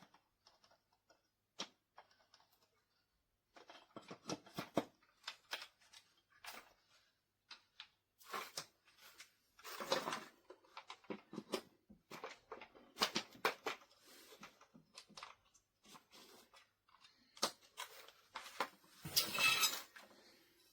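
Irregular clicks, knocks and rustles of a product and its packaging being handled, with a longer rustle of packaging near the end.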